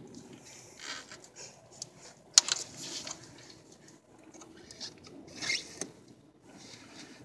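Light clicks, scrapes and rattles of hand tools and parts being handled in an engine bay during a spark plug change, with one sharp click about two and a half seconds in and a short burst of scraping around five and a half seconds.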